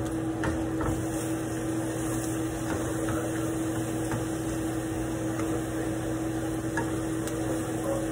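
Steak frying in a pan of butter, garlic and onion: a steady faint sizzle under a constant low hum, with a few light clicks of the tongs.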